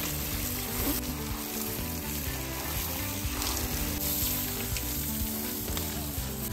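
Steady hiss of water spraying from a garden hose onto an elephant's hide, with music underneath.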